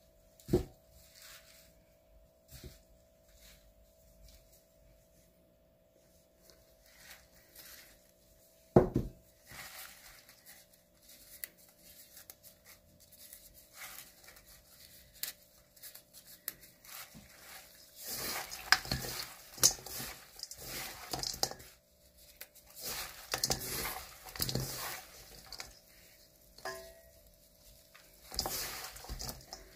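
Gloved hands tossing chicken feet with herbs and vegetables in a stainless steel bowl: irregular rustling and squishing in bursts, busiest in the second half. Two sharp knocks stand out, one near the start and one about nine seconds in.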